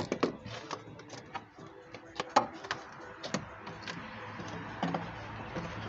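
Irregular clicks and knocks of hands and tools handling parts during car repair work. The sharpest knocks come right at the start and about two and a half and three and a half seconds in.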